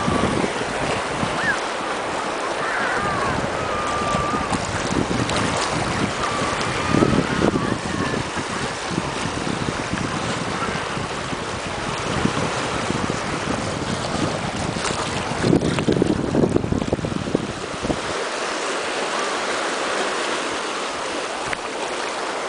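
Small sea waves lapping and washing in shallow water along a rocky shore, with wind buffeting the microphone in gusts that come and go.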